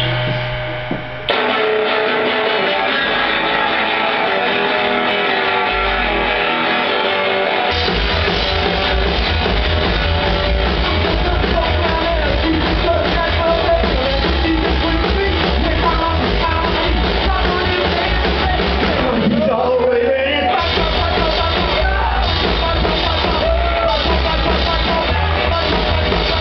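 A live rock and roll band playing: electric guitar, upright double bass and drums. The song kicks in suddenly about a second in, the bass and drums come in fully about eight seconds in, and the band drops out briefly near twenty seconds before carrying on.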